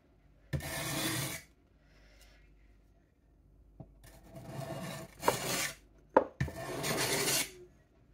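A billhook's steel blade being pushed across a 600-grit sharpening plate in four separate rasping strokes, each under a second. Several strokes begin with a sharp click as the blade meets the plate. There is one stroke about half a second in, a pause, then three close together.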